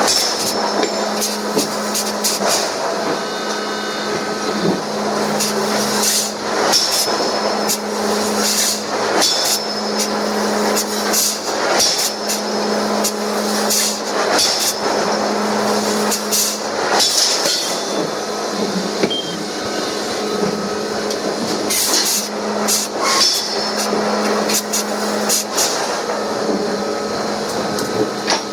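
Heavy forging machinery at work on hot stainless steel: a steady machine hum that stops and restarts every few seconds, with irregular metal knocks and bursts of hissing.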